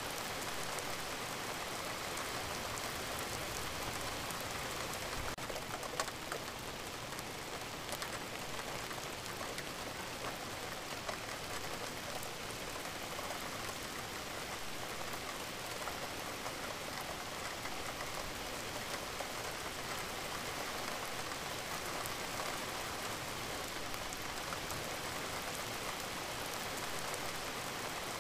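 Steady rain ambience, a recorded rain-sounds track laid over the video as background.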